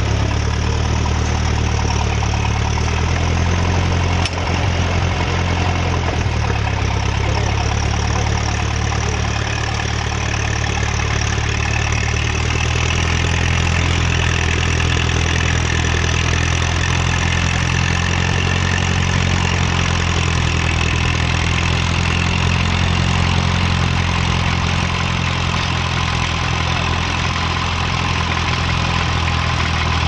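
Vintage Fordson tractor engine running steadily under load as it pulls a plough through the soil, its note shifting a little a few seconds in.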